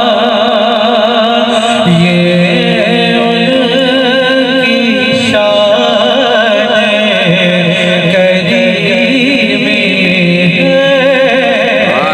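Devotional chanting or singing, the voice wavering in pitch, over a steady held low note.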